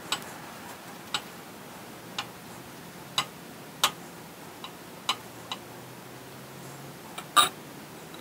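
About ten sharp metallic clicks and clinks at uneven spacing, roughly one a second, from steel dies and parts being handled on a bead roller. The loudest is a longer clank near the end.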